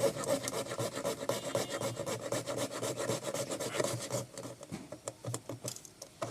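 Hand sawing with a jigsaw blade fitted in a Leatherman Surge multi-tool: rapid back-and-forth rasping strokes of the blade teeth through the material.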